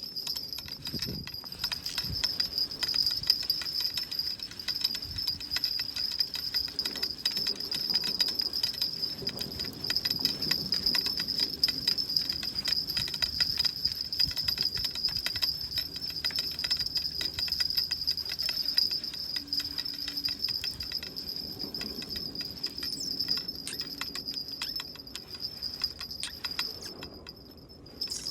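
Insects trilling steadily: one continuous high-pitched drone that eases off a little near the end.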